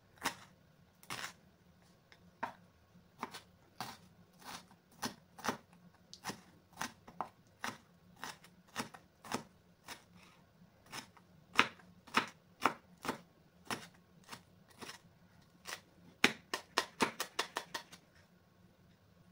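Kitchen knife chopping a bell pepper on a wooden cutting board: sharp strikes of the blade on the board, about two a second, quickening into a fast run of chops near the end.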